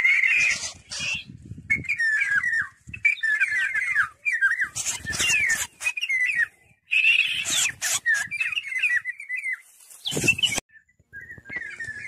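A caught Eurasian golden oriole giving rapid strings of harsh chirping distress calls, in bursts of about a second with short gaps, while it struggles and flaps. There are a few brief rustling crackles from its wings and the grass.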